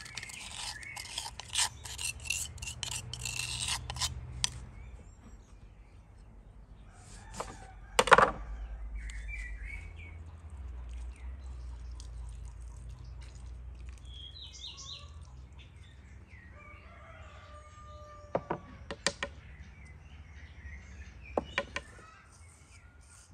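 A wooden spoon scrapes ground herb-and-spice mix out of a mortar into a wooden bowl for the first four seconds or so. A sharp knock comes about eight seconds in. After that, birds chirp and a rooster crows, with a few light taps near the end.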